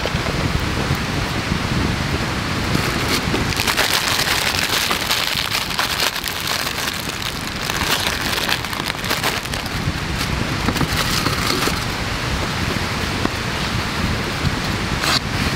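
Wood campfire crackling and popping with a steady run of small snaps. From about three to nine seconds in, a paper coffee filter crinkles as it is opened and fitted into a wire dripper.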